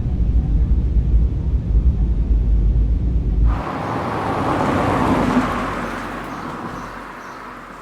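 Transport field-recording ambience: a deep, steady low rumble, then an abrupt cut about three and a half seconds in to a rushing noise that fades away gradually.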